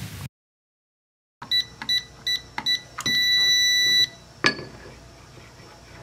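SECO-LARM Enforcer SK-1011-SDQ keypad beeping as a code is keyed in: a quick run of short beeps, then one long beep of about a second, the sign that the code is accepted. A single sharp click follows as the output relay switches and the fail-safe electromagnetic lock releases.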